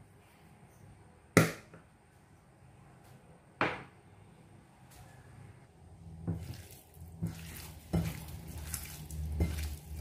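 Two sharp clicks about two seconds apart, then, from about six seconds in, hands mixing raw chicken breast strips in a bowl: irregular wet squelching and slapping as the meat is squeezed and turned.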